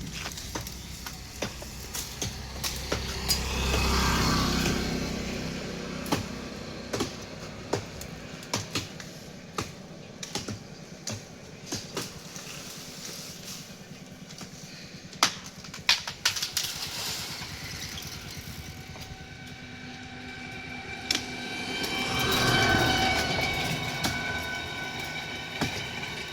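A motor vehicle passing by twice, swelling and fading about four seconds in and again around twenty-two seconds, the second time with a steady whine of several tones. Scattered sharp knocks and clicks sound throughout.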